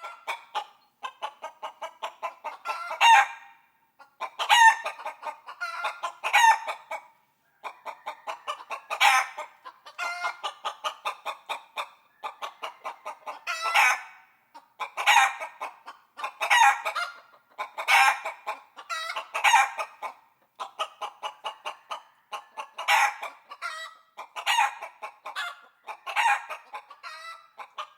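Chicken clucking in quick runs of short pulses, each run building to a louder squawk, repeated over and over with brief pauses.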